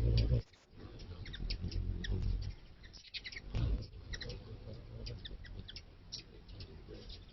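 Wings whirring close by at a nectar feeder: a low hum that cuts off about half a second in and a second brief pass a few seconds later. Short high chirps or ticks run throughout.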